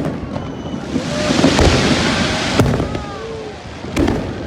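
Aerial fireworks going off: a crackling hiss swells through the middle, with sharp bangs about a second and a half in, again near the middle and near the end.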